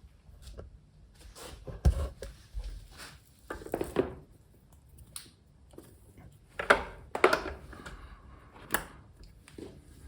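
An XLR cable being handled and its connectors plugged in: a scattering of clicks and knocks, the loudest about two seconds in and a cluster around seven to nine seconds in.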